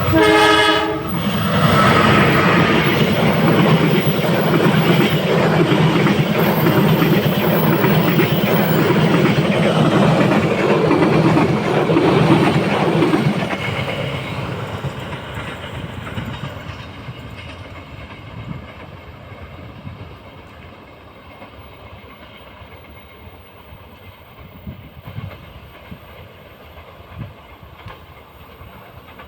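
A diesel locomotive's horn sounds briefly at the start, then the passing train runs loud, engine hum and rail noise together, for about thirteen seconds before fading away. Faint wheel clicks remain in the quieter end.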